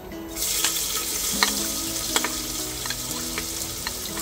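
Chopped onions and chillies hitting hot oil with cumin in an aluminium pressure cooker and sizzling, the sizzle starting suddenly about half a second in and holding steady. A few sharp clicks and scrapes of a steel spoon pushing them off a plastic tray.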